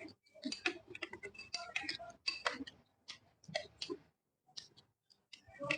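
Close-up eating sounds: irregular wet clicks and smacks of chewing, tapering off after a few seconds.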